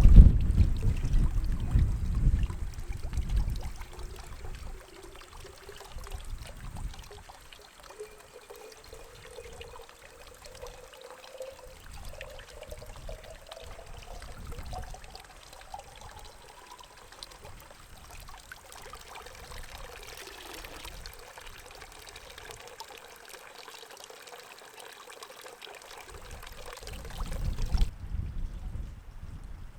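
Strong wind gusting against the microphone, loudest in the first few seconds and again near the end. Between the gusts there is a steady rushing hiss and a faint whine that slowly rises in pitch.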